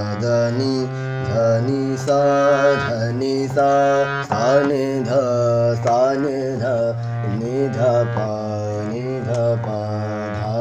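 A low male voice sings a series of held notes with short glides between them in the lower register, as a voice-opening practice exercise, over a steady low drone.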